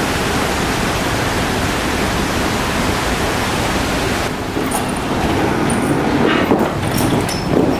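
A steady rushing hiss that cuts off sharply about four seconds in. It is followed by a lower, uneven rumble with a few light clicks and high metallic ticks.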